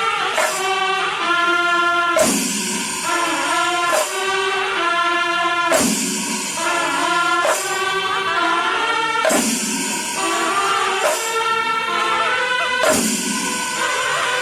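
Background music: a melody over a percussion hit about every two seconds.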